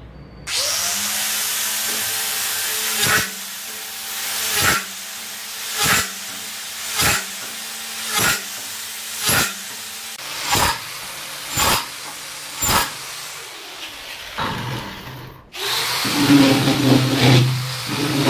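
4-inch angle grinder fitted with a 13 mm drill chuck on a converter nut, running at high speed while drilling a steel channel, with short loud surges about once a second. About fifteen seconds in the sound changes abruptly to the same grinder drilling into a brick, louder and more uneven.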